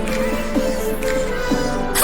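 Background pop song, an instrumental stretch between sung lines, with steady pitched melody notes.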